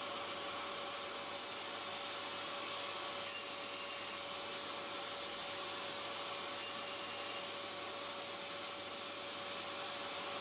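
Shop vac and tool-grinder motor running steadily while a diamond dresses the aluminium oxide grinding wheel: a constant hiss with a steady whine under it. A faint higher tone comes and goes about every three seconds.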